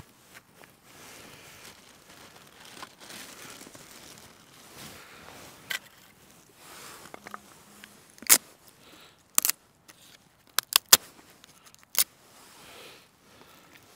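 Firewood being split and worked into kindling: low scraping of wood, then a series of sharp cracks and snaps, a quick cluster of three a little before the end.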